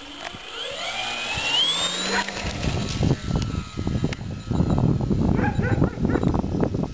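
Electric motor and propeller of a balsa 3D aerobatic model airplane whining up in pitch over the first two seconds as the throttle opens for takeoff. After that a low rushing noise takes over, with a few short yelping calls near the end.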